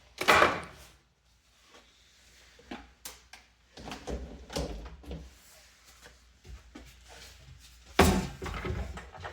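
Knocks and rattling from box fan parts being handled during disassembly, with a loud thunk just after the start and another near the end.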